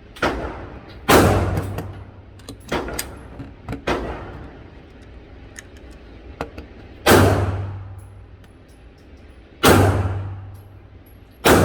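9mm pistol, a Tisas PX9 Gen 3, fired at a slow, deliberate pace: four loud shots several seconds apart, the last right at the end, each with a long echoing tail. Fainter gunshots fall in between.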